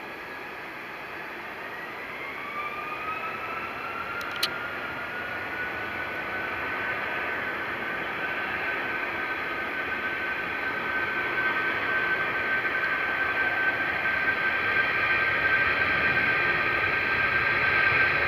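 Airbus A380's turbofan engines whining as the airliner taxis, the whine rising in pitch a couple of seconds in and then holding steady while growing louder. A brief click about four seconds in.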